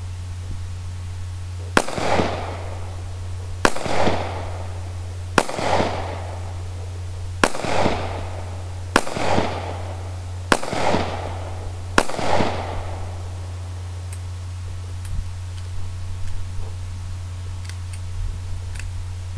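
Seven shots from a Taurus PT709 Slim 9mm pistol, about one and a half to two seconds apart, each with a short echo. A few faint clicks follow near the end.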